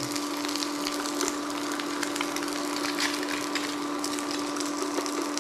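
Eggs and sausages frying in a non-stick pan on an induction cooktop: an even sizzling hiss with scattered small pops, over a steady hum.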